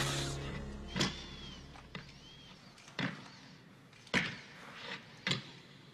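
A held horror-score chord fades out, followed by a quiet run of sharp knocks or clanks about once a second, with a couple of faint high squeaks between them.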